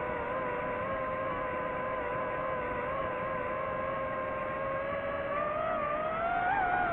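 DJI FPV quadcopter's motors and propellers whining steadily, the pitch climbing and wavering over the last second or two.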